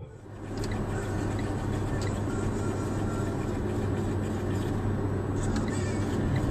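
Steady cabin noise of a car driving along a road: engine and tyre noise with a constant low hum, heard from inside the car.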